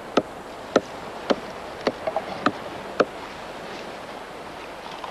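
A tool striking a palm log in a steady rhythm, about two blows a second, six in all, stopping about three seconds in, over a steady background hiss of surf.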